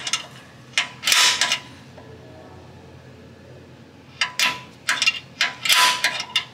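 Center punch snapping against the spot welds of a car's steel frame panel: a few short, sharp metallic snaps and scrapes with the sheet steel ringing. There is one about a second in and a quick run of about six near the end. Each weld is being punched so the drill bit doesn't wander when the welds are drilled out.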